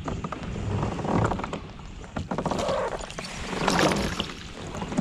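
Water splashing and sloshing at the side of a kayak, with knocks and rattles, surging about a second in and again near four seconds in.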